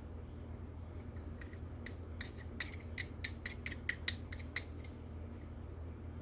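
A quick run of about a dozen light, sharp clicks over a couple of seconds: a small screwdriver working the tiny throttle-plate screws into a carburetor.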